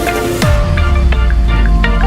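Electronic dance music in a dubstep style. About half a second in the drum hits stop and a bass note slides down into a deep, held bass, with a sparse synth melody above it.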